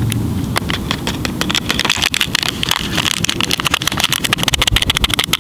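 Water boiling hard in a steel canteen cup over an alcohol stove, with instant drink powder being shaken into it. The bubbles make dense popping and crackling that grows busier about three seconds in, over a low steady rush.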